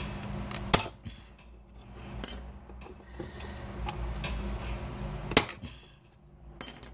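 Metal-on-metal clicks and clinks of an Allen key and hand tools working loose parts inside a car amplifier's metal chassis, with handling and scraping between them. There are several sharp clicks, the loudest about a second in and again near the end, over a steady low hum.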